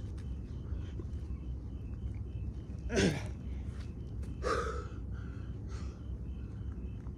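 A man gasping for breath, winded after a set of push-ups: two loud gasping exhales about three and four and a half seconds in, the first falling in pitch.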